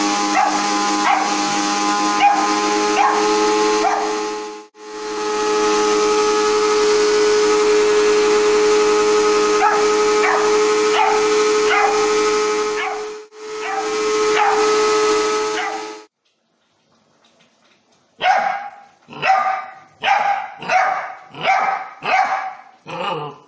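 Labrador puppy barking again and again at a running mixer grinder, whose motor makes a loud steady whine that cuts out briefly twice and then stops two-thirds of the way through. The puppy keeps barking after the grinder stops, about one bark every 0.7 seconds near the end, barking out of fear of the grinder.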